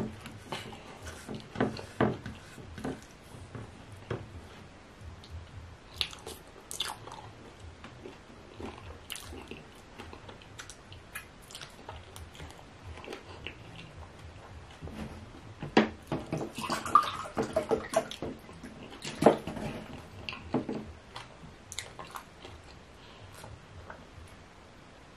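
Close-miked wet mouth sounds of eating with the fingers: lip smacks, sucking and licking sticky ogbono soup off the fingers, with some chewing. A louder run of smacks comes about two-thirds of the way in.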